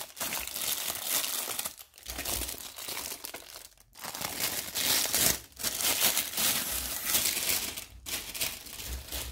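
Thin clear plastic bag crinkling and rustling as hands pull it off a small boxed device, in several bouts with brief pauses between them.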